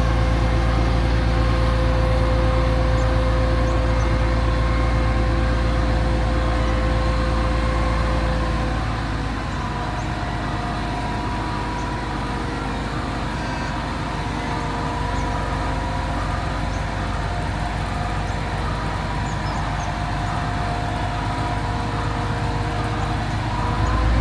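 Motor vehicle engine running steadily with a deep rumble and a held hum, dropping in loudness and shifting slightly in pitch about nine seconds in.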